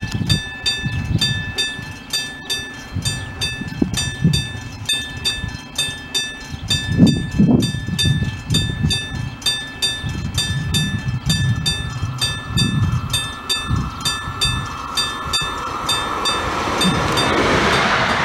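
ŽSSK class 671 double-deck electric multiple unit approaching and passing, its rolling noise growing from about twelve seconds in until it is the loudest sound near the end. Before that, the loudest sound is a ringing tone repeating two to three times a second.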